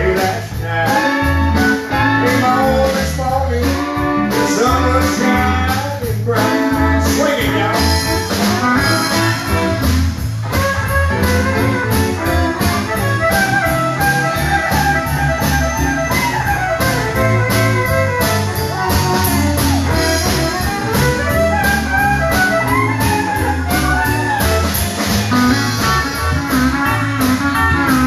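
Live country band playing with pedal steel guitar, fiddle, electric guitar, electric bass and drums, over a steady drum beat.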